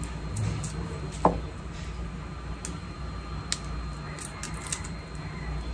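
Garlic cloves being peeled by hand: faint crackles and clicks of papery skin, with one sharper click about a second in, over a steady low hum.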